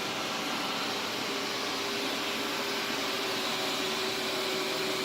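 Xiaomi Mi robot vacuum (first generation) running mid-clean: a steady whir from its suction fan and drive. A faint steady tone comes in about a second in.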